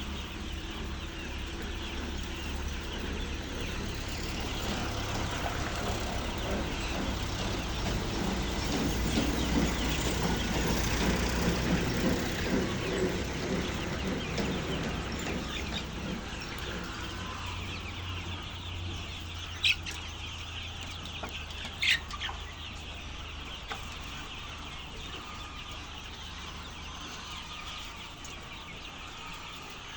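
A flock of chickens clucking together, busiest in the middle, over a steady low hum. Two sharp clicks come about two-thirds of the way through.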